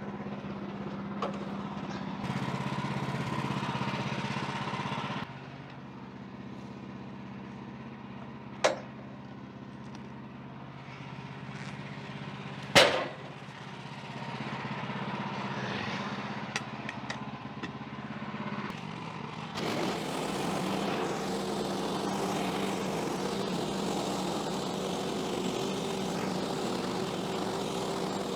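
Portable band sawmill's gas engine running steadily at low speed, with two sharp knocks about 9 and 13 seconds in. About 20 seconds in the engine picks up and a louder, steady running noise takes over.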